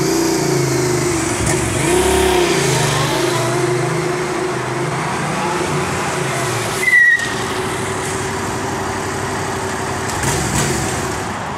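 Yamaha FZ-07 motorcycle's parallel-twin engine running under way, its pitch rising and falling with the throttle in the first few seconds, then holding steady. A short sharp chirp about seven seconds in.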